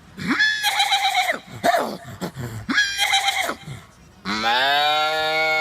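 A man imitating animal calls with his voice: three short calls, then a long held call starting about four seconds in.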